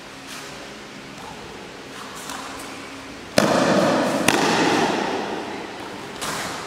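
Sharp slaps and stamps from a pencak silat performer on a foam mat. A loud one comes a little past halfway and rings on for a second or so, a second crack follows just under a second later, and a smaller one comes near the end as he drops to the floor.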